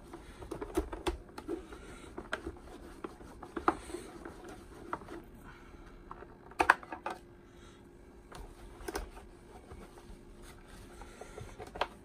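Cloth rubbing over the plastic body of a Hoover Junior U1012 upright vacuum as it is polished, with scattered clicks and knocks as the machine is handled. The loudest knocks come about halfway through and again a couple of seconds later.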